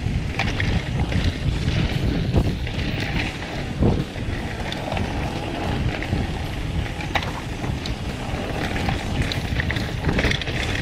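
Mountain bike riding down a dirt trail: wind buffeting the camera microphone over the tyres rolling through dirt and dry leaves, with scattered clicks and rattles from the bike over bumps.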